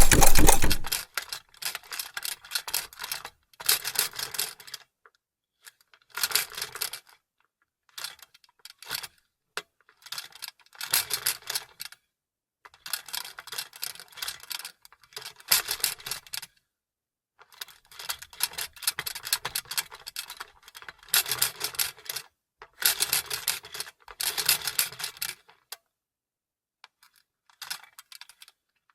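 Vintage sewing machine running steadily, then stopping about a second in, followed by a long series of short, clattering stitch bursts of a second or so each with pauses between: the machine being run slowly in brief spurts, its needle mechanism clicking like typing.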